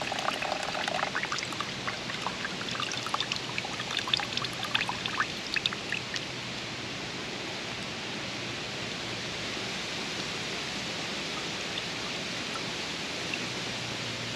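A steady rushing noise, with scattered light ticks through the first six seconds, then only the even rush.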